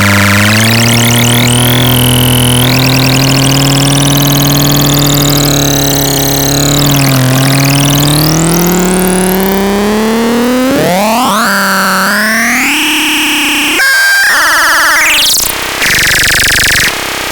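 Synthesizer playing a held tone with many overtones that slowly bends down and back up in pitch, then fast rising sweeps and sudden jumps between tones near the end.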